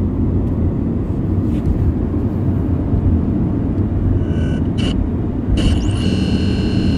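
Radio interference: a loud low rumbling noise. About four seconds in, steady high electronic tones cut in briefly. From near the end, several tones sound together, opening with a short rising whistle.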